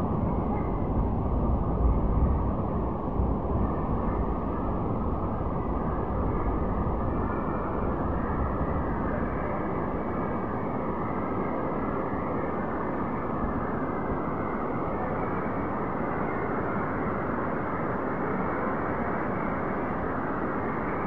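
Very heavy rain pouring down steadily onto pavement and a roof, with runoff streaming off the roof edge. There is an added low rumble in the first few seconds.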